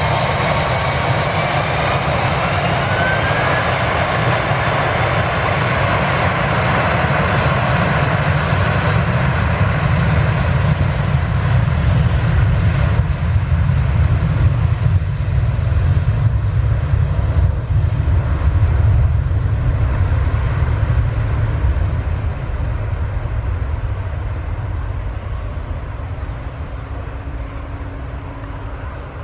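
Jet airliner's turbofan engines at takeoff thrust: a whine rising in pitch over the first few seconds over a loud, deep rumble that peaks about halfway through, then fades steadily as the aircraft climbs away.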